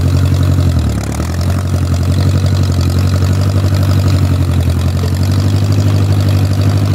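Old Case tractor's engine running steadily; its speed dips briefly about a second in, then picks back up.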